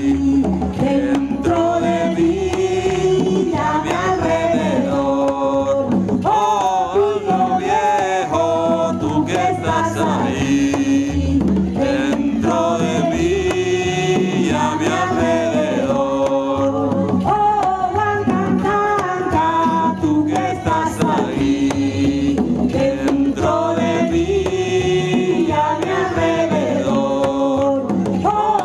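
Live ethnic folk music: a sung, chant-like vocal melody over a steady drum rhythm.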